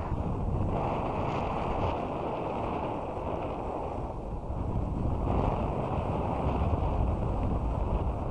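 Wind rushing over the microphone of a camera worn by a snowboarder riding down a groomed slope, a steady rumbling hiss mixed with the board's sliding on the snow, swelling a little about five seconds in.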